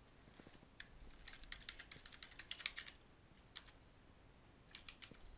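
Faint computer-keyboard typing: a quick run of keystrokes lasting about two and a half seconds, then a few single clicks near the end.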